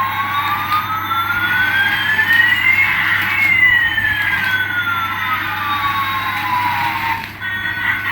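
Two electronic tones sliding slowly in opposite directions, one rising and one falling, crossing about three seconds in, over a steady hiss. They end about seven seconds in.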